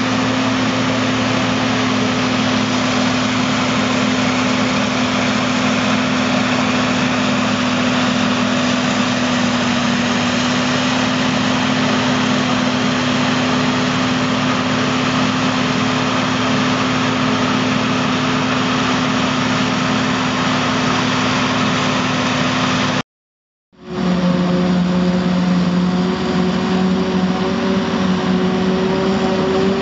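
John Deere 5830 self-propelled forage harvester chopping maize, with a tractor and trailer running alongside: a steady engine drone with a steady hum. A moment of silence comes about three-quarters through, after which the drone goes on at a slightly different pitch.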